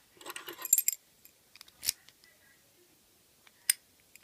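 Small metallic clicks and rattles from a Yale padlock being handled, then two sharp single clicks about two seconds apart.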